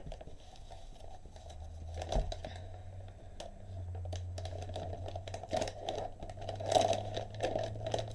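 Packaging crinkling and rustling as motherboard parts and accessories are handled and packed back into their box, with light clicks and knocks, a sharper one about two seconds in and the loudest near the end, over a low steady hum.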